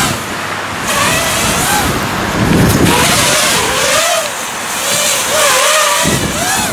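Racing quadcopter's Racerstar BR2205 2600 kV brushless motors, on a 3-cell (3S) LiPo, whining in repeated rising and falling sweeps as the throttle is punched and eased. Gusts of wind rumble on the microphone.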